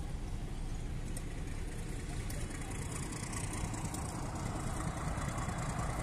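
Steady engine rumble of motor vehicles, swelling a little in the second half and cutting off suddenly at the end.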